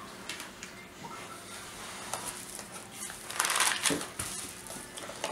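Plastic bags rustling and crinkling as hands reach into a plastic-lined styrofoam shipping box. Light scattered clicks come first, then a louder burst of crinkling a little past halfway through.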